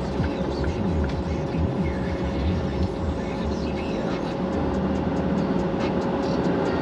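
Truck running on the road, a steady low engine and road rumble with a constant whine over it. A radio talks faintly in the background.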